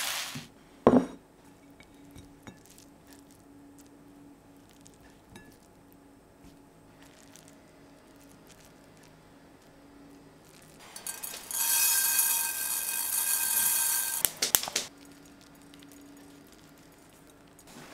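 A ceramic bowl is set down on a wooden table with one sharp clink about a second in. Faint small clicks follow as food is arranged in it. About eleven seconds in, a dry hissing rattle lasts for a few seconds as toasted sesame seeds are sprinkled over the food.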